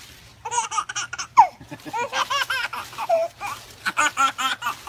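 Baby laughing in a long run of quick, high-pitched giggles that start about half a second in.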